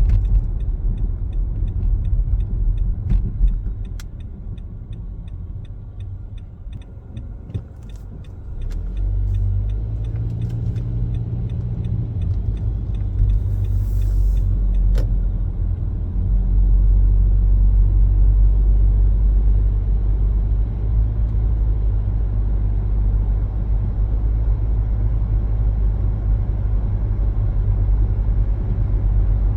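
Car cabin road noise and low rumble while driving. It drops for a few seconds as the car slows, then swells as it picks up speed, about a third of the way in and again past the middle. A light, regular ticking, about two a second, runs through the slow stretch and stops as the car pulls away, typical of a turn signal.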